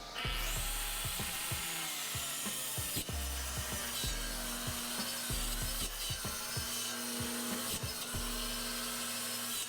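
Power saw starting up and cutting lengthwise through a butcher block countertop to trim off its edge, with a steady high whine.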